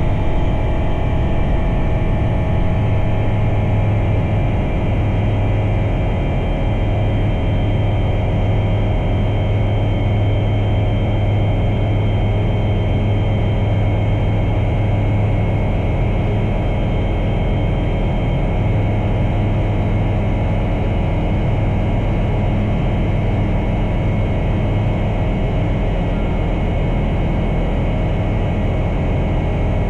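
Bristell Classic light aircraft's piston engine and propeller running steadily at high power during the climb just after takeoff, a constant low-pitched engine note with several steady higher tones above it.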